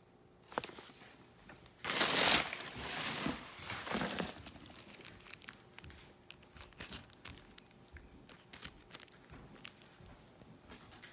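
Tissue paper and cardboard packing rustled and crinkled by hand as a box is unpacked, loudest in two rushes about two and four seconds in, then a run of small crinkles and ticks.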